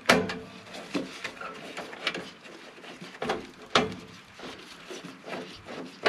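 Nut driver working the single mounting screw of a furnace's hot surface igniter: a series of irregular sharp clicks and knocks of the tool and metal parts.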